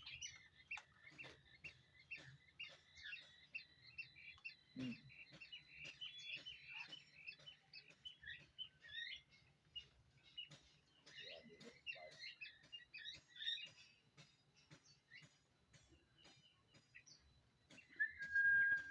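Young zebra doves (perkutut) peeping in a quick, steady stream of short high chirps, with light clicks and taps among them. The chirping thins out about two-thirds of the way through, and near the end a short, steady high tone sounds.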